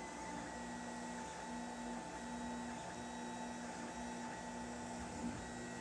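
Lulzbot TAZ 5 3D printer printing: its stepper motors whine in repeated short runs of about half a second each, with brief breaks between moves, over a steady hum. A light tick about five seconds in.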